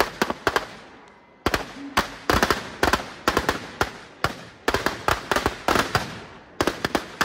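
Firecrackers going off in quick, irregular clusters of sharp cracks, several a second, each with a short echoing tail, with a brief lull about a second in.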